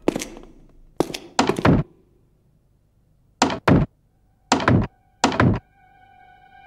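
A wooden door is knocked or jolted hard about eight times, mostly in pairs, while it is held shut by a pole wedged through its handle. Near the end a steady sustained musical note begins.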